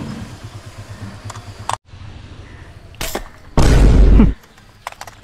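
A slingshot shot at a fish: a sharp snap about three seconds in, then a loud, gunshot-like boom lasting under a second.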